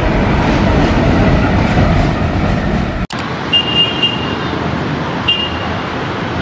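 Heavy rumble of an Indian electric locomotive and its train rolling past close by. About three seconds in, it cuts to a quieter scene of an approaching electric locomotive sounding two short, high horn toots.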